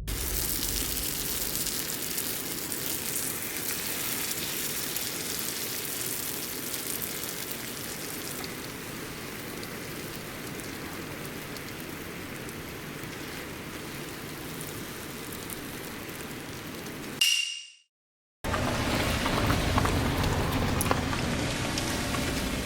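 Food sizzling in a frying pan over a campfire: a steady crackling hiss. It breaks off about three quarters of the way through and comes back a little louder.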